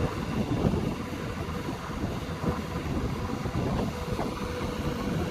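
JCB backhoe loader's diesel engine running hard under load as the backhoe bucket digs murum, a dense uneven rumble. A thin steady whine joins about four seconds in.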